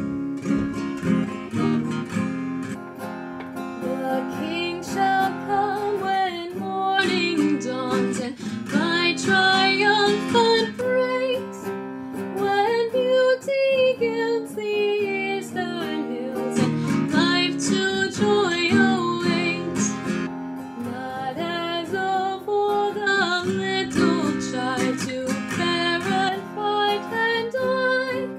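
A woman singing a hymn to her own strummed acoustic guitar; the guitar starts alone and her voice comes in about four seconds in.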